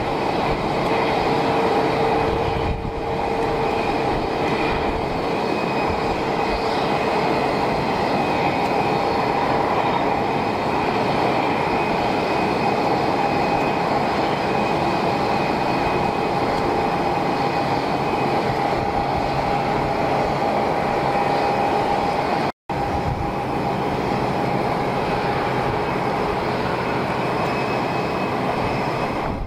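Jet aircraft engines running steadily at low power: a rushing noise with several steady whining tones over it. The sound cuts out for an instant about three-quarters of the way through.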